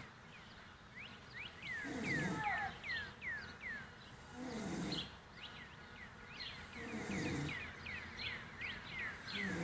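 A man snoring in his sleep, a low rasping snore on each breath, about every two and a half seconds. A fast run of short high chirps continues behind it.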